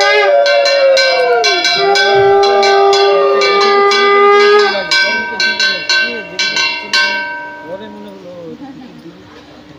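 Puja hand bells rung rapidly with long ringing tones, together with a conch shell blown in two long notes that sag in pitch as each breath ends. The bell ringing stops about seven seconds in and dies away.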